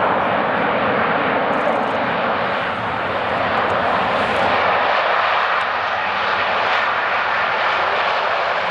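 Airbus A380-861 airliner's Engine Alliance GP7200 turbofans, a steady loud jet rush as the aircraft rolls along the runway.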